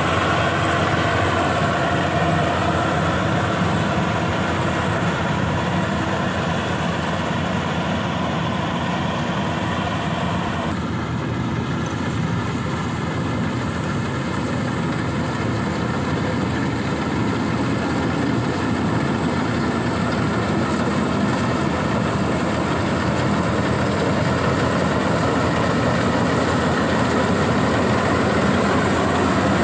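Rice combine harvester running steadily under load, its engine and threshing machinery making a continuous mechanical noise with a thin high whine on top. About eleven seconds in, the higher part of the sound drops off suddenly.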